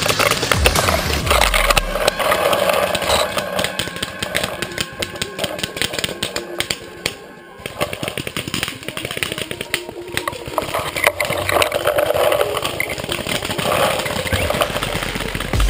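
Dense crackling and scraping of twigs, branches and dry leaves rubbing against the body and camera as someone pushes through undergrowth on foot, easing off briefly about halfway.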